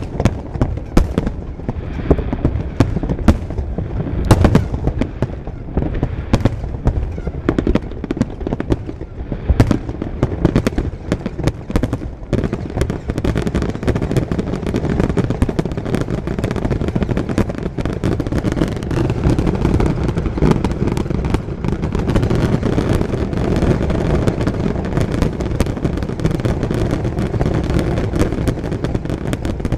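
Fireworks display: aerial shells bursting one after another in a string of sharp bangs, which thickens after about 13 seconds into a dense, near-continuous barrage of overlapping booms.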